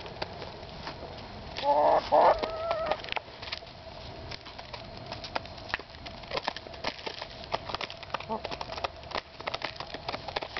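Hens pecking black sunflower seeds from a bowl: quick, irregular clicks of beaks striking seeds and the bowl. About two seconds in, one hen gives a loud call lasting about a second.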